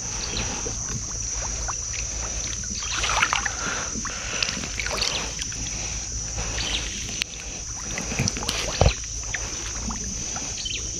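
Small boat moving along a river as a fishing trotline is worked by hand: irregular water splashing and lapping with handling knocks, one sharp knock late on, over a steady high insect drone.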